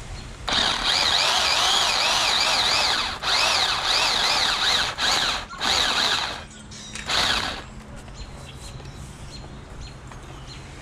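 Portland electric pole saw cutting into a tree limb, the chain running in bursts: one long run of about three seconds, then four shorter ones, its whine wavering up and down as it bites the wood. It stops about seven and a half seconds in.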